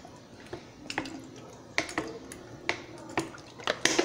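Cooking oil being poured from a plastic bottle into an open tin can, with irregular sharp clicks and glugs.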